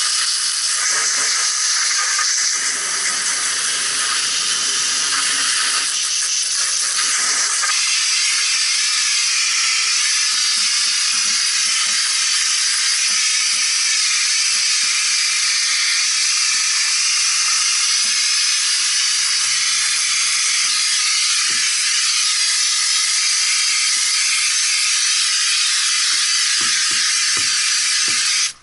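Garden hose spraying water in a steady, loud hiss, rinsing an HVAC unit's coil.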